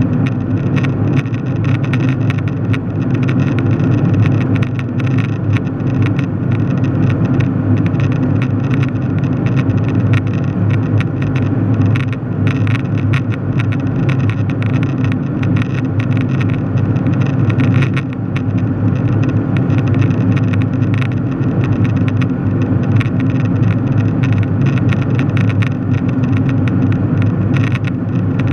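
Jet airliner cabin noise in cruise: a steady, even drone of engines and airflow, heaviest in the low pitches.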